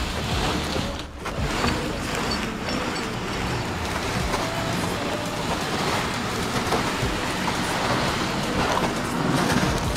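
Heavy diesel machinery running steadily.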